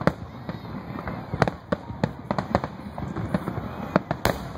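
Aerial firework shells bursting in a rapid, uneven string of about a dozen bangs and cracks over a low rumble.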